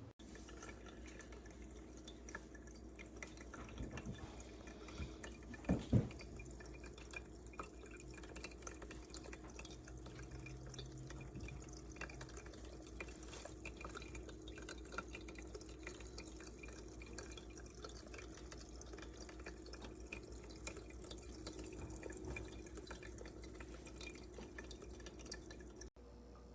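Small tabletop stone fountain running, water trickling and dripping faintly and steadily down its bowls, with a couple of soft knocks about four and six seconds in.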